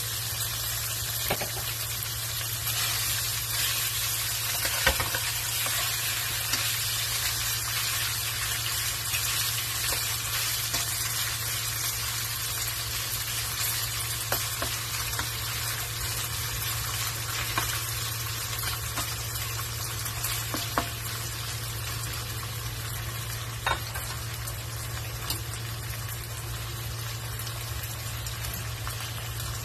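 Marinated chicken pieces sizzling steadily as they fry in a nonstick pan. A spatula stirs and turns them, with a few sharp clicks and scrapes against the pan.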